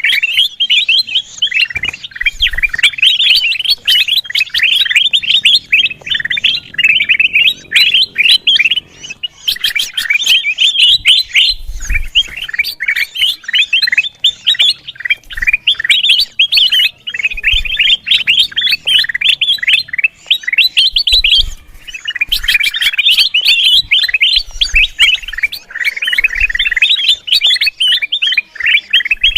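Kutilang emas bulbul chattering rowdily, a fast, unbroken run of sharp chirps with a few brief pauses. Occasional low thumps sound beneath it.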